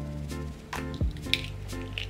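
Background music with bass-drum beats, over a raw egg being cracked and its contents dropping into a glass dish, with a short wet crack about a second and a half in.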